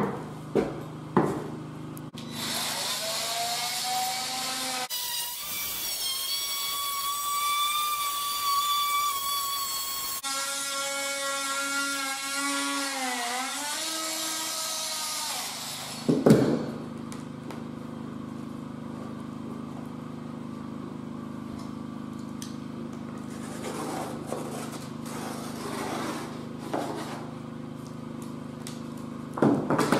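Cordless oscillating multi-tool spinning up and cutting into the plastered plasterboard reveal for about fourteen seconds. Its pitch dips briefly as the blade bites, then it stops. A knock follows, then quieter handling sounds.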